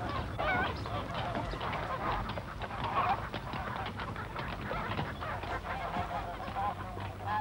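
Geese honking: many short, overlapping calls from a flock.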